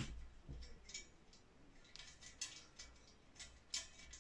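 Faint, irregular light clicks and scrapes of small bronze bushes being handled and turned in the tapped holes of a copper model boiler shell.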